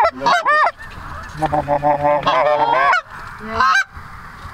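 Canada geese honking: a quick run of short honks that rise and fall in pitch, then a longer drawn-out call in the middle, and one more short honk near the end.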